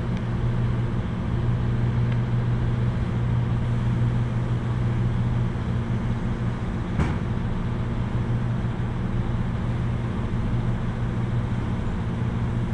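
Air compressor running with a steady low drone, and a single sharp knock about seven seconds in.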